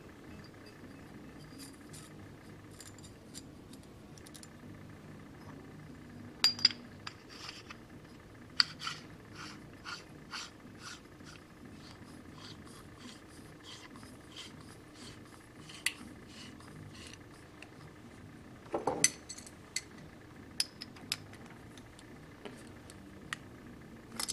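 Light metallic clicks and clinks as the plug, shim and body of an EXAIR Super Air Amplifier are handled and the plug is screwed back into the body by hand, with sharper clinks about six seconds in and again near nineteen seconds.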